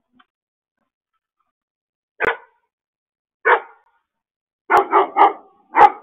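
A dog barking in six short barks: one about two seconds in, another a second later, then a quick run of three and a final bark near the end, picked up by an outdoor security camera's microphone.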